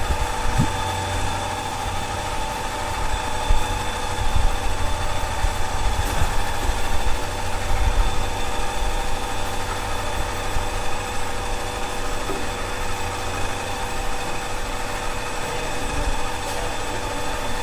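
Tata Ace mini-truck engine idling steadily.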